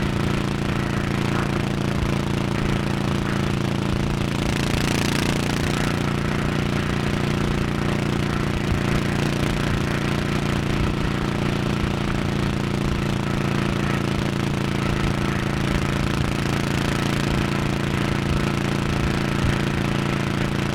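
1100cc Honda motorcycle engine running at a steady highway cruise, its pitch holding level, with a brief rush of wind-like noise about five seconds in.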